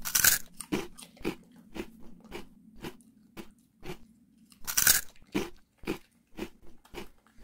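A Maltese dog crunching raw vegetable pieces, close to the microphone. There is a loud crunching bite at the start and another about five seconds in, with steady crunchy chews about twice a second between them.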